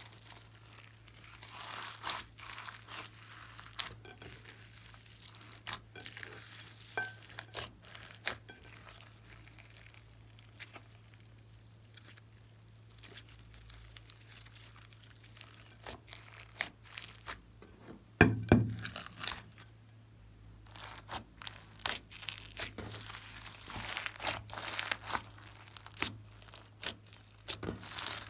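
Glossy slime being worked by hand: irregular wet clicks, pops and crackles, with one louder thump about two-thirds of the way through.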